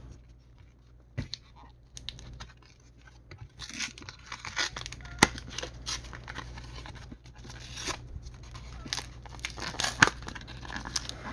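Trading card booster pack wrapper being torn and crinkled open by hand, a stubborn, hard-to-open pack. A few faint clicks at first, then from about three and a half seconds in a dense run of crackling rips and crinkles with a few sharper snaps.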